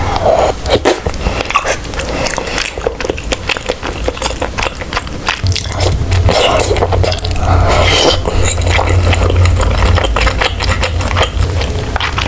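Close-miked mukbang eating sounds of potato-dumpling tteokbokki being chewed, with many short wet clicks and smacks.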